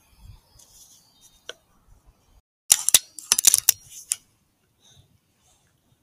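A quick run of sharp mechanical clicks and clacks starting a little under three seconds in and lasting about a second and a half, with faint ticks around it.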